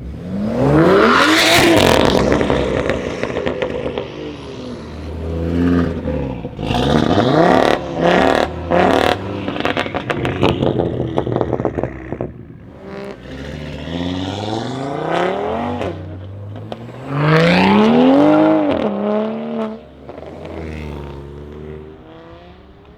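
Straight-piped, turbocharged BMW 335i straight-six revving hard, its pitch climbing and falling. A run of sharp crackles and pops from the exhaust comes in the middle, and there is another hard rev near the end.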